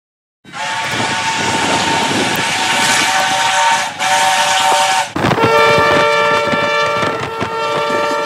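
Multi-note train horn sounding a loud held chord over a rushing hiss, played back at one and a half times speed. It begins about half a second in and breaks off about five seconds in. A second blast with a different, lower chord follows at once.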